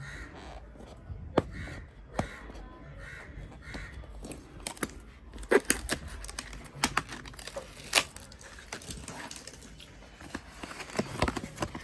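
Paper tear strip being ripped off a cardboard Apple Watch box, with the card and paper handled as the box is opened: irregular sharp tearing crackles and clicks.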